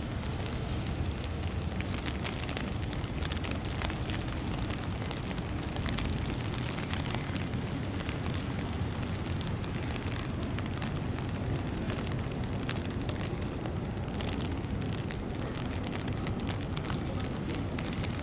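Steady outdoor city ambience in falling snow: a constant low rumble with a fine crackling noise over it.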